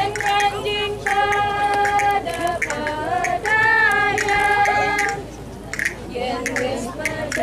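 A woman singing long held notes that waver and bend in pitch, accompanying the dance, with short sharp taps between them. The singing drops away briefly about five seconds in, then resumes more softly.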